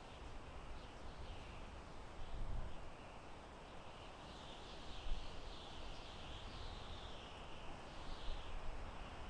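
Soft wind in a forest, with low gusts swelling about two and a half and five seconds in. A wavering high chorus of animal calls runs over it and grows stronger about halfway through.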